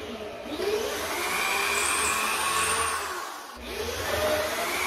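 Corded electric drill plunging a bit through a wooden cabinet drawer front. The motor spins up and runs steadily, stops for a moment about three and a half seconds in, then spins up again.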